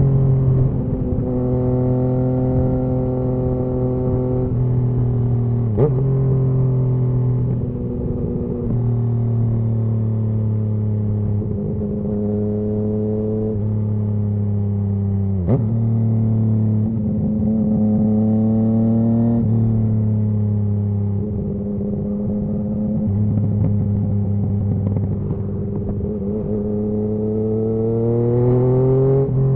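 Yamaha MT-09's inline three-cylinder engine through a Scorpion Serket full exhaust under way, its note stepping and drifting in pitch as the revs change, with two sharp pops about six and sixteen seconds in. The revs climb near the end.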